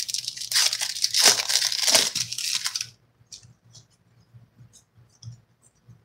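A Donruss football card pack's wrapper being torn open and crinkled for about three seconds, then faint soft ticks of the cards being shuffled through by hand.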